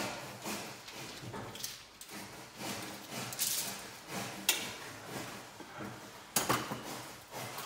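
Knocks and rattles of a folding metal step ladder being handled and shifted, among scattered rustles; the sharpest knock comes about six and a half seconds in.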